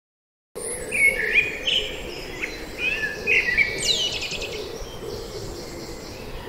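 Several birds chirping and whistling in quick, overlapping calls, some with fast falling notes, over a steady background hiss. The birdsong begins about half a second in.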